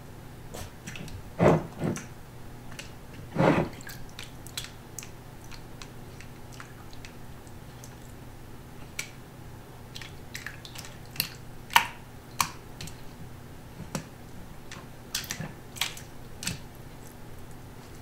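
Corgi puppy playing in a plastic water bowl: irregular wet slaps, splashes and sharp clicks, the loudest hits about a second and a half in and again near three and a half seconds.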